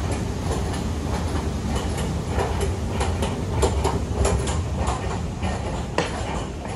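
Escalator machinery running with a steady low rumble, then footsteps on a hard floor after stepping off about four seconds in, with one sharp click about six seconds in.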